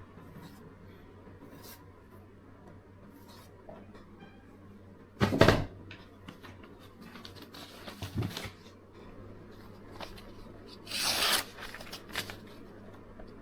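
Handling noises: a loud knock about five seconds in, a lighter knock a few seconds later, and a short rasping rub near the end.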